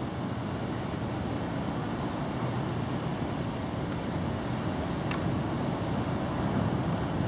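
Steady low outdoor background rumble, with a short sharp tick and a brief high-pitched tone about five seconds in.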